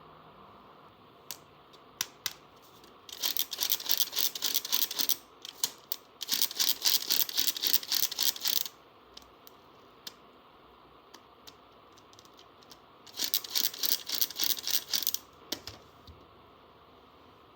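Rapid clicking and rattling of small plastic toy parts, in three bursts of about two seconds each with a few single clicks between.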